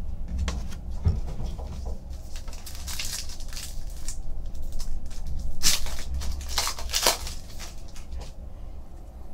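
2015 Panini Contenders Draft Picks football cards and their pack wrapper being handled: cards sliding and scraping against each other as a pack is torn open and its cards pulled out, a run of short rustles and crinkles, loudest about six to seven seconds in.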